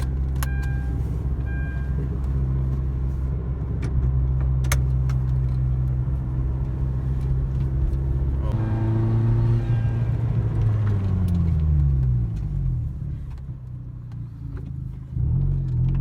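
Genesis Coupe's turbocharged four-cylinder engine pulling at a steady pitch, then the revs falling away over a few seconds and the sound dropping off, before it picks up again near the end. The engine is not making any boost.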